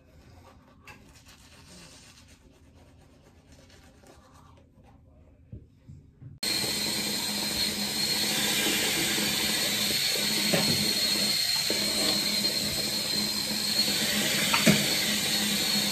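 Faint scrubbing of a manual toothbrush on teeth. About six seconds in, a loud, steady rushing noise starts abruptly and keeps going.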